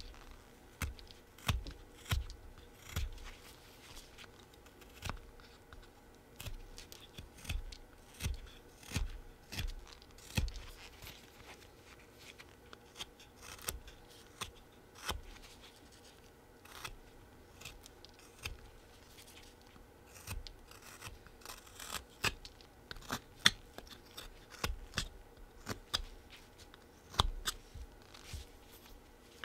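Flexcut Whittlin' Jack folding knife slicing small chips off a wooden bee blank: a string of short cutting strokes at an uneven pace, roughly one every second, some with a low knock.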